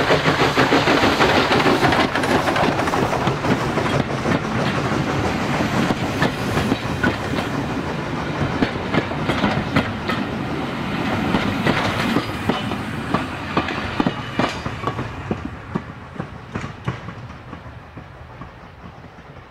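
Steam locomotive No. 65, an SECR O1 class 0-6-0, passing close while working hard up a gradient, its exhaust beating loudly. The coaches then roll by with a clickety-clack of wheels over the rail joints, and the sound fades away as the train draws off.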